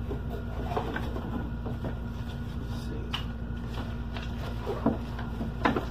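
A few faint knocks and clicks of objects being handled at a desk, over a steady low room hum.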